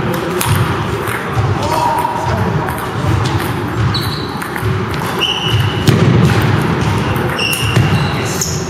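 Table tennis ball clicking back and forth off paddles and table in a rally, the hits irregular and echoing in a large hall, over a background of voices.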